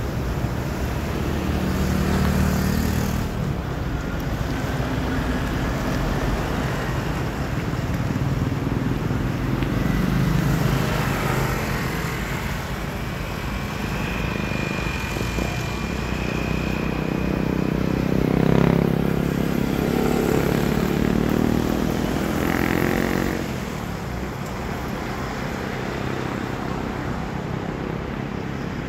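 Motor traffic running along the road, with steady engine and tyre noise. One vehicle grows louder a little past the middle and fades about five seconds later.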